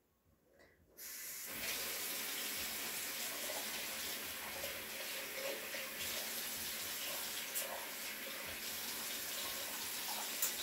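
Bathroom sink faucet turned on about a second in, water running steadily into the basin.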